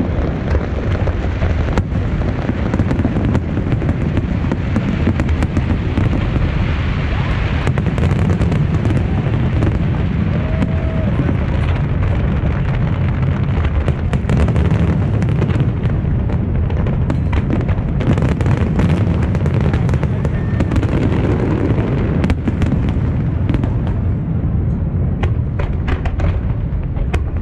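Large aerial fireworks display: shells bursting in a dense, continuous barrage of overlapping booms and sharp pops, with no let-up.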